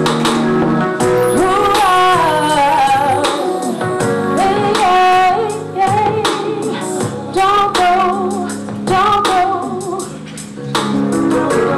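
A woman singing a song, her voice sliding and wavering between held notes, over backing music with a drum beat and sustained low notes.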